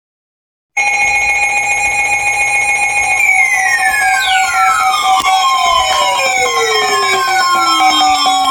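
An electronic alert sound starts abruptly about a second in with steady held tones at several pitches. From about three seconds in, several siren-like sweeps fall in pitch, one after another, and overlap the held tones.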